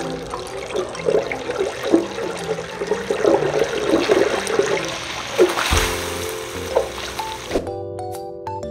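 Hot oil in a deep fryer sizzling and crackling as food fries in the wire basket, with background music; near the end the sizzling cuts off abruptly, leaving only the music.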